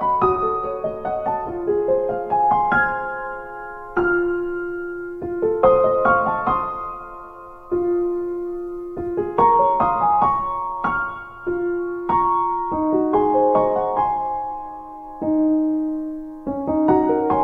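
Background piano music: notes and chords struck and left to ring and fade, in an unhurried melody.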